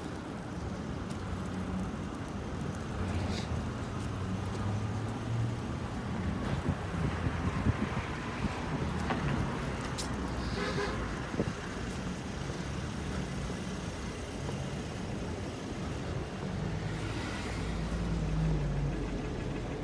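City street traffic: engines running and vehicles passing, with a short car horn toot about halfway through and a heavier vehicle rumbling by near the end.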